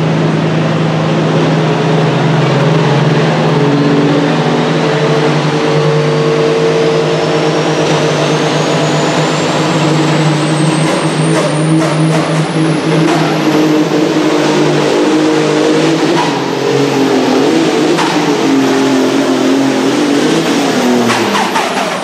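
Supersports-class pulling tractor's engine running flat out under load as it drags the weight-transfer sled, with a high whine climbing steadily in pitch through the pull. Near the end the engine note drops.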